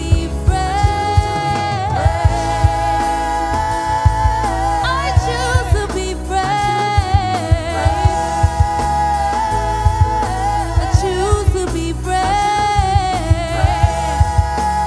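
Live gospel worship music: voices holding long sung notes with vibrato over bass and drums keeping a steady beat.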